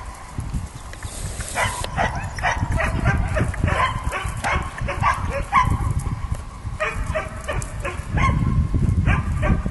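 A dog barking in quick runs, about three barks a second, starting after a pause of about a second and a half, with a low rumble underneath that grows louder near the end.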